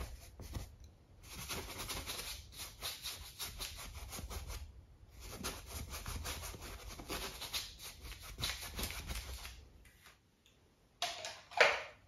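Paintbrush bristles scrubbing acrylic paint onto a stretched canvas in quick, short back-and-forth strokes, scumbling leftover white paint. The scrubbing stops about ten seconds in, and a couple of louder handling sounds follow near the end.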